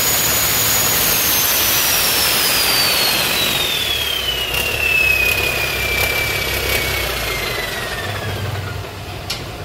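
1992 Cummins N14 mechanical straight-six diesel running, with a high turbocharger whistle that slides steadily down in pitch over several seconds as the turbo winds down. Under it the engine's low rumble carries on.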